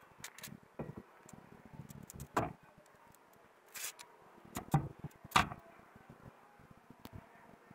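Scattered knocks and clinks of a steel blade, cut from a truck leaf spring, being handled against a wooden board and rebar jig, with a few louder knocks and a brief scrape in the middle.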